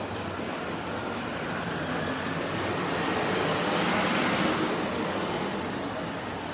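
A vehicle passing close by: a steady rush of traffic noise that swells to its loudest about four seconds in, then fades.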